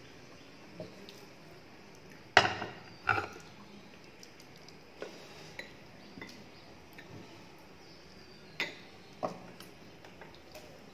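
Hand eating from crockery at close range: scattered sharp clicks and clinks of plates and bowls along with chewing mouth sounds, with two louder knocks about two and three seconds in.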